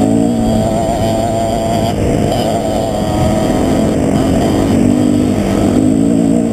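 Husqvarna TE 250 enduro motorcycle's single-cylinder four-stroke engine running under way on a dirt track, its pitch dipping and rising as the throttle is eased and opened.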